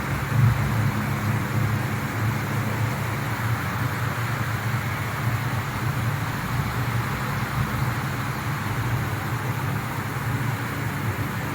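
Plastic granulator (RG-36E plastic grinder) running steadily: a constant motor and rotor hum with an even rushing noise over it, with one brief louder bump about half a second in.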